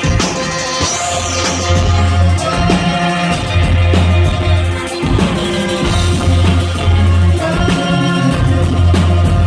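Live livetronica band playing: a drum kit keeps a steady beat under synthesizer and keyboard parts, over long, loud bass notes that each hold for a second or two.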